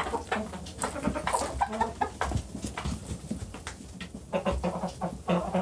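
Backyard chickens clucking softly, with scattered short clicks.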